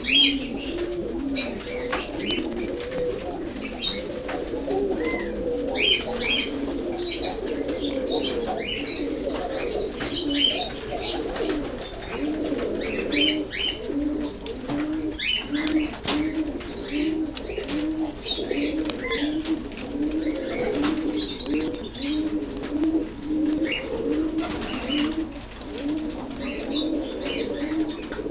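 Domestic pigeons of an Iraqi breed cooing, a long run of low rounded coos at about two a second, with higher chirps and short clicks scattered over it.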